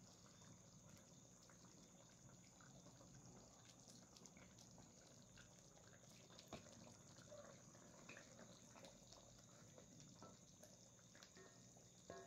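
Faint simmering of a pot of curry: soft, scattered bubbling pops over a low steady hum.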